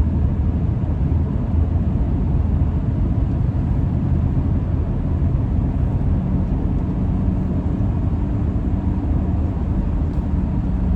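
Steady low road and engine rumble heard from inside a moving car's cabin, with a faint humming note that comes in about halfway through.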